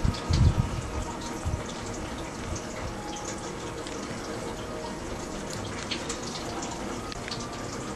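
Water dripping, many light scattered ticks over a steady hiss, with a few low thumps in the first second or so.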